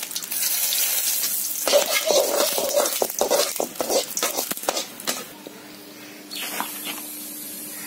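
Whole spices (cinnamon, cloves, cardamom) sizzling in hot oil in a kadai. In the middle stretch a metal slotted spatula scrapes and clinks against the pan as they are stirred and fried.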